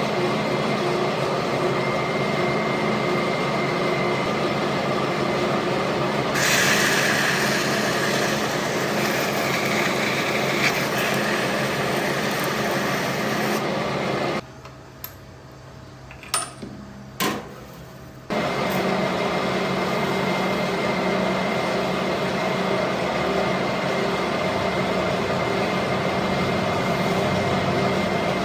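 Manual metal-turning lathe running with a steady mechanical hum. For a few seconds, from about six to ten seconds in, a harsher, brighter noise rises over it. Around the middle the sound drops abruptly to a much quieter stretch with a couple of clicks, then the lathe noise returns.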